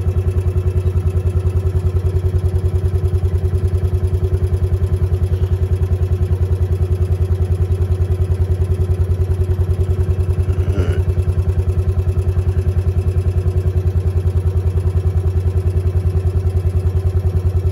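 A vehicle's engine running steadily, with an even, rapid low pulse and no change in speed.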